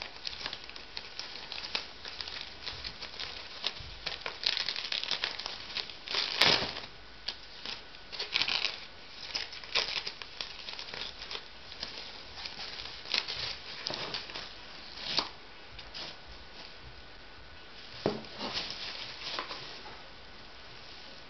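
Packaging being handled and unwrapped: irregular crinkling and rustling with small clicks, loudest about six seconds in and again near eighteen seconds.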